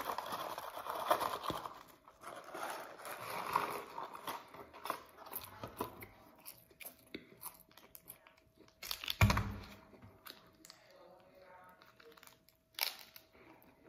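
Paper fry carton crinkling as French fries are shaken out onto a burger, then close-up chewing and mouth clicks of eating fries. A single loud thump comes about nine seconds in.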